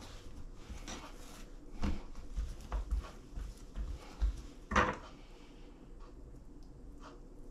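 Hands pressing and stretching bread dough flat on a stone worktop: irregular soft thumps and knocks, with a sharper clatter about five seconds in, after which it goes quieter.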